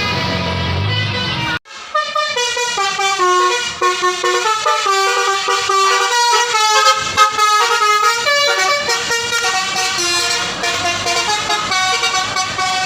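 Indonesian bus 'telolet basuri' musical air horn playing a fast melody of quick stepped notes. It is preceded by about a second and a half of bus engine running under horn tones, which breaks off abruptly.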